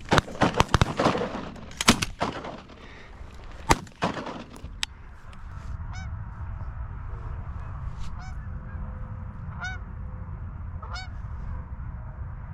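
A rapid volley of shotgun shots from several hunters fired into a flock of Canada geese, the loudest cracks packed into the first two seconds and two more near four seconds, with geese honking through the volley. After that, single goose honks, evenly spaced.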